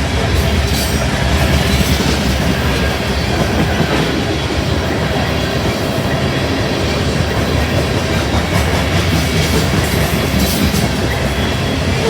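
A freight train's cars rolling steadily past, with wheel and rail noise.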